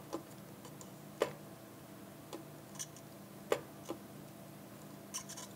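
Soldering iron pressing copper solder wick onto circuit-board pads to soak up old solder, with a handful of faint, irregular ticks roughly once a second over a steady low hum.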